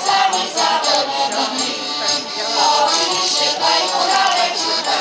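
A mixed folk ensemble of women and men singing a folk song together, with a rattling percussion keeping the beat.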